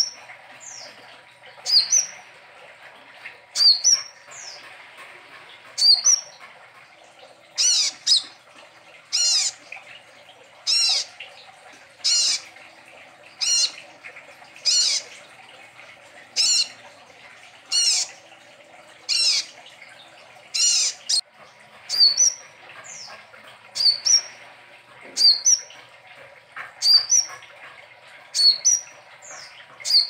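Caged brown-breasted 'kolibri ninja' sunbird calling repeatedly, a short high phrase about every second and a half. The calls are brief rising chirps at first and again near the end, and louder, fuller phrases through the middle.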